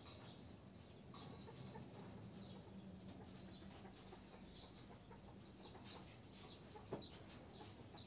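Faint sounds of domestic pigeons in a wire-mesh loft: scattered small taps and scratches, with a low steady hum through the first half and a light knock near the end.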